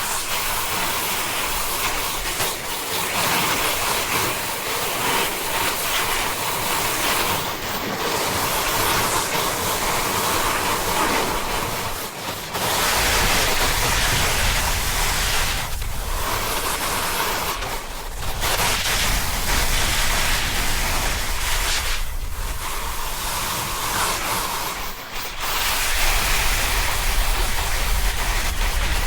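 Snowboard sliding and carving down a snow slope, a steady rushing scrape mixed with wind on the microphone. The scrape drops off briefly a few times, between turns.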